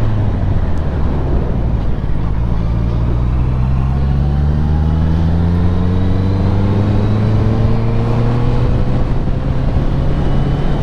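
Honda CBR650R inline-four motorcycle engine with an Akrapovic exhaust, under way; its note rises slowly and steadily for several seconds as the bike pulls up through the revs.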